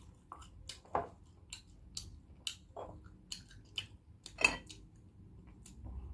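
Close-miked chewing of balot: irregular wet mouth clicks and smacks, with one louder smack about four and a half seconds in.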